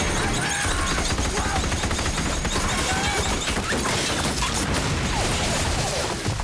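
A big machine gun firing rapidly without a break, with explosions and walls smashing as the rounds hit.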